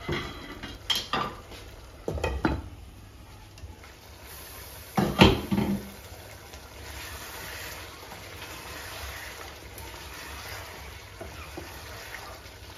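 Several clattering knocks of kitchen utensils and crockery, the loudest about five seconds in, then a soft steady hiss of beef stew simmering in its pot, with a wooden spoon beginning to stir it near the end.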